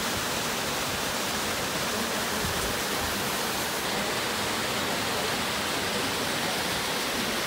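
Small creek waterfall pouring down between boulders: a steady rushing hiss of falling, splashing water.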